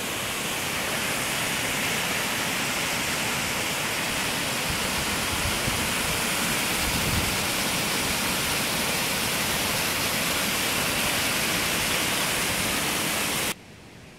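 Paulina Falls, a waterfall on Paulina Creek, rushing steadily. The sound cuts off abruptly near the end.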